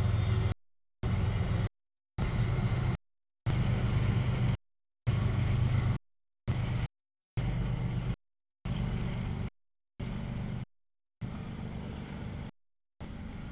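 CSX diesel-hauled freight train passing close by: low locomotive rumble and rolling wheels, loudest in the first half and easing as the freight cars go by. The audio keeps cutting out in short dead-silent gaps about once a second.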